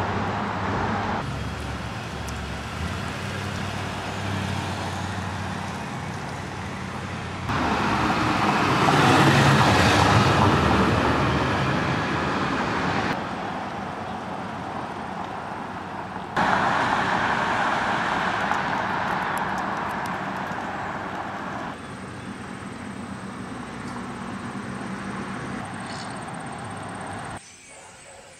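Outdoor street ambience with traffic, broken into short clips whose level changes abruptly at each cut; about a third of the way in, a car passes by, rising and fading away.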